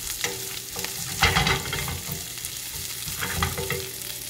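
Whole spices, ginger and red chillies sizzling in hot oil in a pan on a low flame, with a spoon stirring and scraping against the pan; the loudest scrape comes about a second in.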